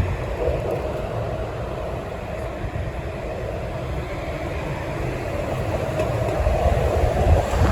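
City street traffic: steady engine and tyre noise from passing vehicles, with a heavier low rumble building near the end.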